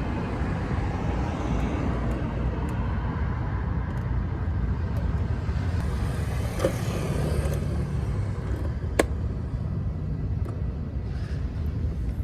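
Steady low outdoor rumble of road traffic, with one sharp click about nine seconds in.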